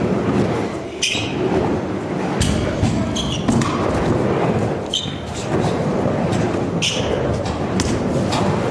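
Stunt scooter and skateboard wheels rolling on plywood ramps, with several sharp clacks and thuds from decks and wheels striking the wood, and children's voices echoing in a large hall.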